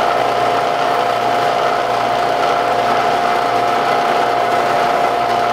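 Bridgeport milling machine spindle running a 1-inch cutter down through a welded steel sleeve, a steady whine with cutting noise underneath, as the cutter cleans out the bore that welding distorted.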